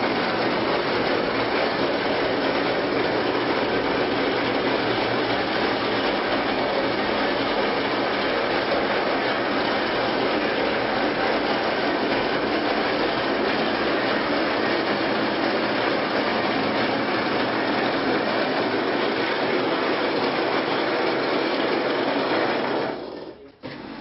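Automatic wall plastering machine running: a steady, dense mechanical rattle as its plate spreads mortar onto the wall. It cuts out abruptly near the end.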